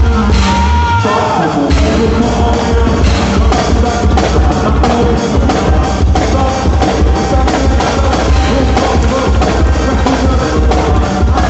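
Loud quadrilha junina dance music with a steady drum beat and heavy bass. The bass drops out briefly about a second in.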